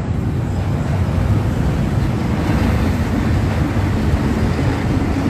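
Oxy-fuel gas welding torch flame giving a steady, loud roar, heavy in the low end.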